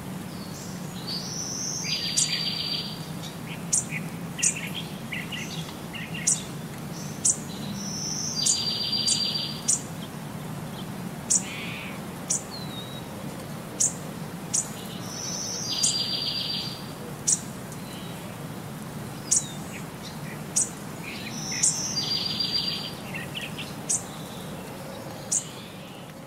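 Songbird singing, the same phrase repeating about every six to seven seconds: a short rising whistle into a buzzy trill, with sharp high chirps in between.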